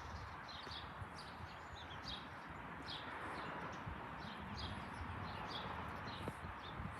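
Small birds chirping repeatedly in short, high, falling notes over a steady background hum of outdoor noise.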